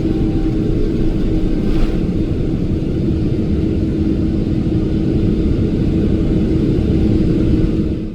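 Cabin noise of a Boeing 777-300ER with its GE90 engines at takeoff power: a loud, steady rumble with a steady hum through it. It cuts off abruptly at the end.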